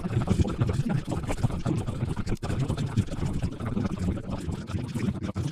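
Speech played back at about thirty times normal speed: a continuous, rapidly fluttering jumble with no words that can be made out.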